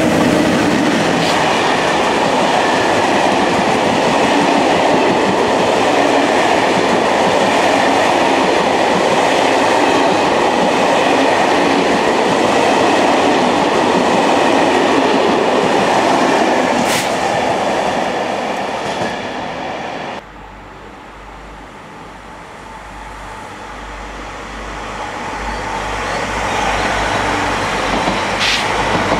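An electric locomotive and its passenger coaches pass close by: a loud, steady rush of wheels on rail with clickety-clack, fading after about fifteen seconds. The sound cuts off abruptly about two-thirds of the way in, leaving a low hum. Then a double-deck passenger train approaches and passes, growing loud again near the end.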